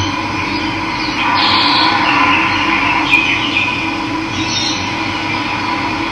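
Steady rush of running water, with birds chirping over it a few times.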